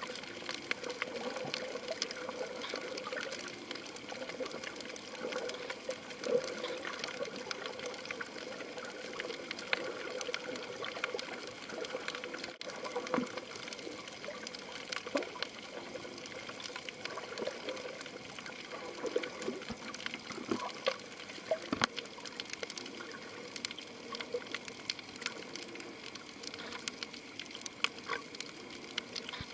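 Water heard through a camera's underwater housing: a steady, muffled wash of water, scattered with brief faint clicks.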